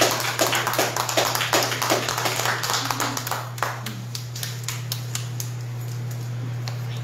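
A small congregation applauding, the clapping thinning out and stopping about four seconds in, with a steady low hum running underneath.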